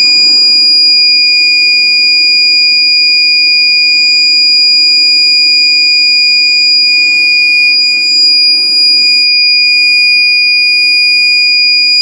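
Small electronic buzzer sounding one loud, steady, high-pitched tone without a break, switched on by a BC547 transistor once the thin loop wire is broken: the loop-break security alarm has been triggered.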